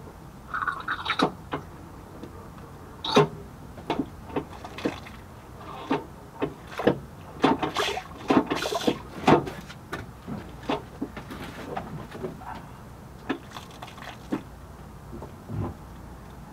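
Brake fluid and air gurgling out of a Nissan 240SX's clutch slave cylinder bleeder into an upside-down bleed bottle as the clutch pedal is pumped, in irregular short gurgles and pops: air being bled out of the clutch hydraulics.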